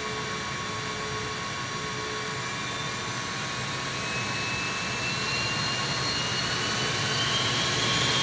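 Samsung VC3100 canister vacuum cleaner's motor running with a jet-engine-like whine that rises slowly in pitch and grows louder as the suction is turned up.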